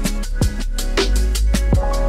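Background music with a steady beat and deep bass drum hits.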